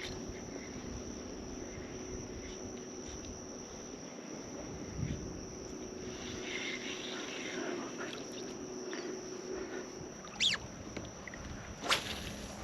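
Kayak trolling motor humming steadily over water noise; the low hum stops about ten seconds in. Two short, sharp sounds come near the end.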